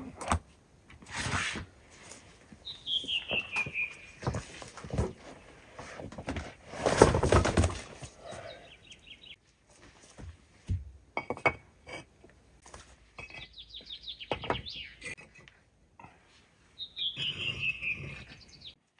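Canvas tarpaulin cover of a small car trailer being unfastened and opened at the rear: rustling and flapping, the loudest bursts about a second in and around the middle, with clicks and knocks of fittings and the trailer frame. A small songbird sings a short high phrase of notes falling in pitch, twice.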